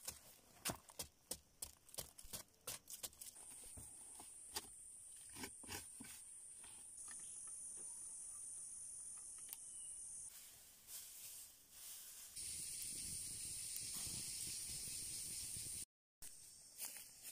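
Scraping and knocking strokes as a stick digs into dry earth, then a steady high-pitched insect drone with a few soft handling sounds under it.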